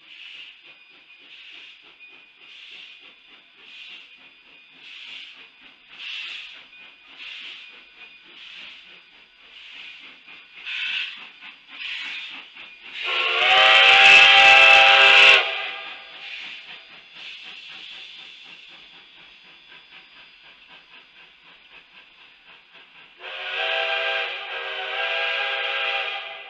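Narrow-gauge steam locomotive pulling out with its train: soft exhaust chuffs about once a second, then one long, loud steam whistle blast about halfway through and another long blast near the end.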